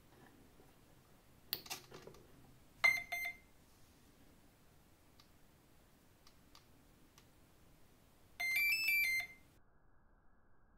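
Flycolor brushless boat ESC beeping through its motor: a couple of clicks about a second and a half in, a short beep near three seconds, then a quick run of stepping beep tones near the end, the quick beep order that signals the ESC is entering programming mode with the throttle held at full.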